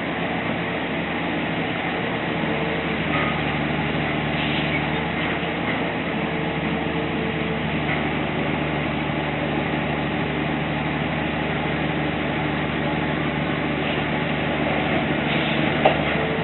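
A steady engine-like hum, with a brief click near the end.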